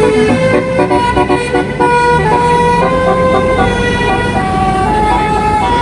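A bus's 'telolet basuri' musical air horn playing a tune of stepped notes, some short and some held for about a second, with the bus's engine running underneath.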